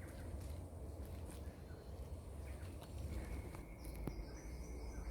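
Rainforest ambience over a low rumble, with faint clicks. About three seconds in, a steady high-pitched drone begins. Soon after, a higher chirring call joins it, typical of a rainforest insect or bird calling.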